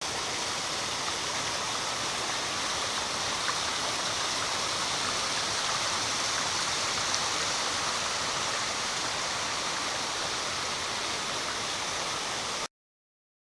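Steady rush of flowing stream water, cutting off suddenly near the end.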